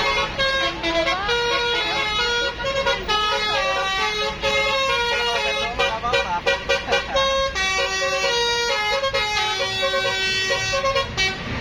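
Bus telolet horn of the Basuri multi-tone type playing a quick melody of stepped, held notes, then cutting off just before the end.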